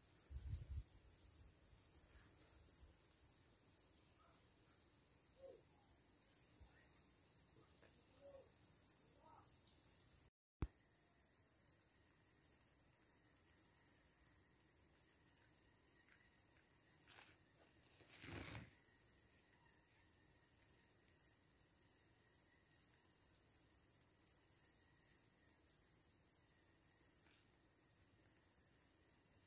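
Faint steady high-pitched trilling of insects such as crickets, with a few low handling bumps right at the start. About ten seconds in, the sound drops out briefly and ends with a sharp click.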